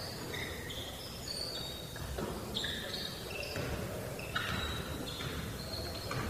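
Basketball shoes squeaking on a hardwood gym floor: a string of short, high squeaks at changing pitches over the low hum of a quiet gym.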